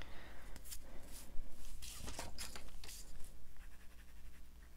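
A pocket-size mechanical pencil being handled: a few short light clicks and scratchy rustles at irregular intervals.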